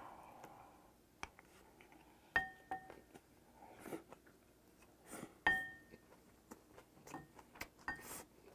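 Close-miked chewing of spicy seasoned raw gizzard shad salad, with scattered small clicks. Twice, about two and a half and five and a half seconds in, a utensil clinks against a plate and rings briefly.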